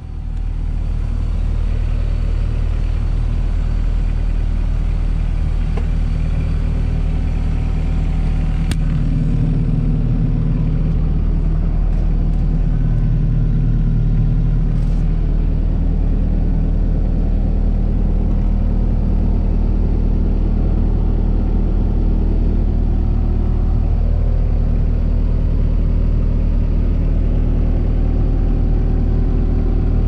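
New Holland L170 skid steer's diesel engine running steadily, heard from inside the cab as a low, even drone.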